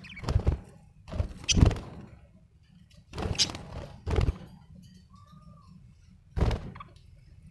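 Pet budgerigar giving a run of short, harsh chirps with gaps between them, and one soft whistled note in the middle.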